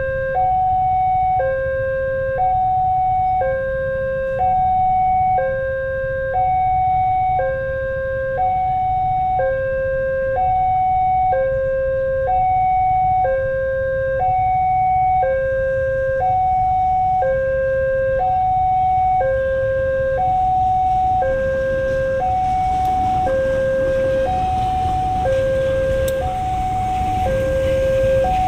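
Two-tone hi-lo warning siren alternating between a lower and a higher pitch about once a second, over a steady low rumble of engines; the rumble and noise build up near the end.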